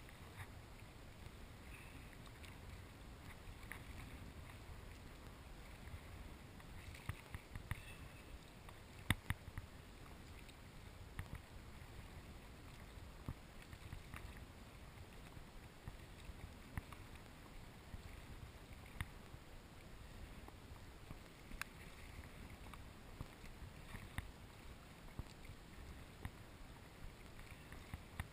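Sea kayak in choppy water: a faint steady low rumble of wind and waves, broken every second or two by short sharp knocks and splashes as waves slap the hull and the paddle strikes the water.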